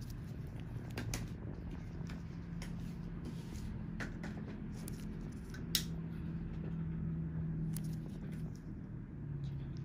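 A steady low droning hum whose pitch shifts slightly, with scattered light clicks and ticks over it.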